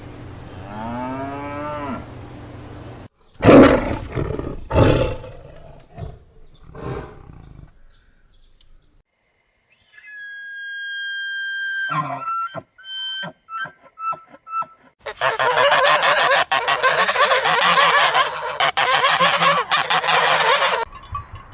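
A string of different animal calls, one after another. There are pitched calls at the start, heavy low calls a few seconds in, and whistle-like notes after a short silence. In the last third comes a dense, loud chorus of many calls that stops abruptly.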